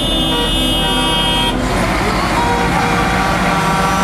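A truck air horn sounds a steady tone and cuts off about one and a half seconds in. The running diesel engine of a Mercedes-Benz Axor tipper truck passing close by follows it.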